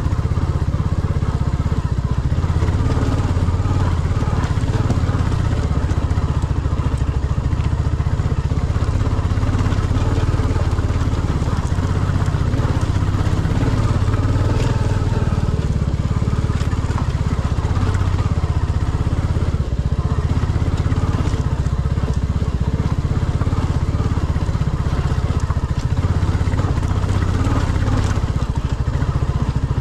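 Royal Enfield Classic 350's single-cylinder engine running steadily as the motorcycle is ridden.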